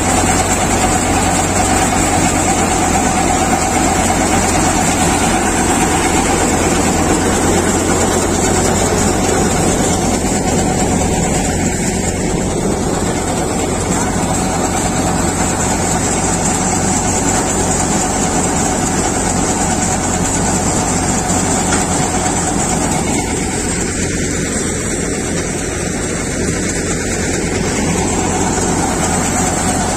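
J.S multicrop thresher running steadily while threshing urad plants: a continuous loud drone with a steady whine, over a low engine hum.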